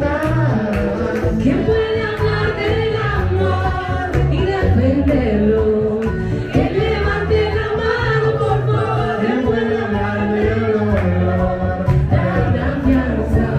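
Music with singing over a steady bass line.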